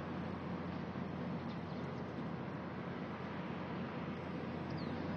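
Steady outdoor background noise with a few faint, short bird chirps, about a second and a half in and again near the end.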